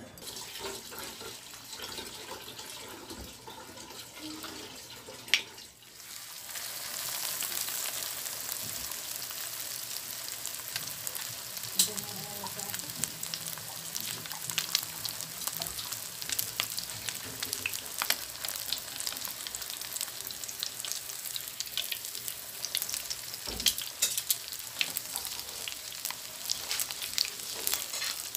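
Panko-breaded aji (horse mackerel) fillet frying in hot oil in a pan: a steady sizzle full of sharp crackles and pops. It starts a few seconds in, after quieter handling sounds and a single sharp click.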